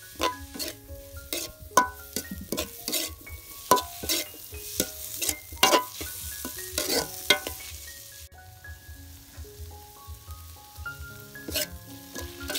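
Food sizzling in a hot pan while a spoon stirs and scrapes it, with frequent quick knocks and clinks against the pan. The sizzling hiss drops off about eight seconds in, and the stirring knocks pick up again near the end.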